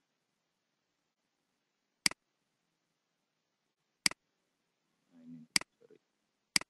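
Four sharp computer mouse-button clicks, the first two about two seconds apart and the last two closer together, each a quick double tick.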